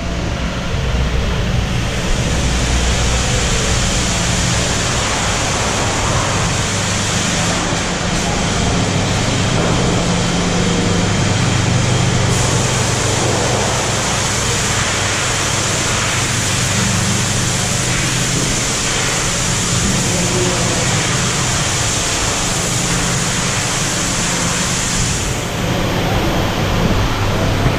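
Steady industrial noise of mussel-processing machines and conveyors running, a low hum under a loud even hiss. The hiss sets in about two seconds in and falls away near the end.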